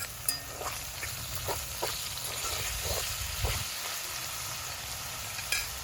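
Chopped vegetables and seasonings sizzling as they fry in oil in a pot, with a steady hiss. A spoon stirring knocks against the pot a few times.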